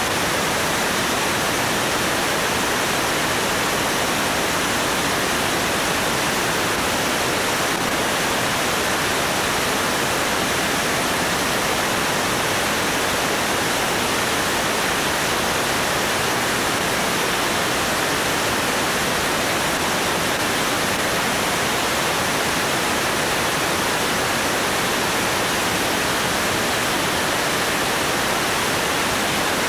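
Steady rush of wind over a camera mounted outside a Cessna 205, under its wing, in flight at about 158 mph. It is an even, unchanging roar with no engine or propeller note standing out from it.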